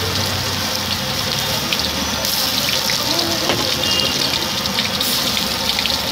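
Hot oil sizzling in a wok as a piece of food deep-fries: a steady hiss, full of small crackles and pops.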